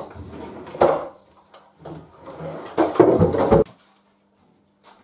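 A wooden pull-out tray in a workshop base cupboard sliding and knocking, with the tools in it rattling: a sharp knock about a second in, then a longer sliding rattle ending in a knock around three seconds in. The cupboard door is handled as well.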